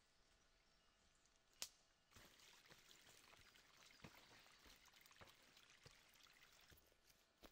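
Near silence with faint footsteps rustling and crunching through dry leaf litter and undergrowth, starting about two seconds in and dotted with small clicks. One sharp click comes just before the rustling starts.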